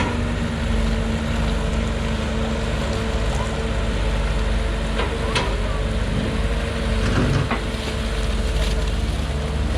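Excavator's diesel engine running steadily, with a couple of short clanks about five and seven and a half seconds in.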